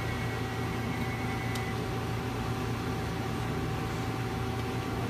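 2007 Mazak Nexus QTN 250MSY CNC lathe running with a steady hum and a steady mid-pitched whine over it. A faint high tone fades out about a second and a half in, and there is one faint tick.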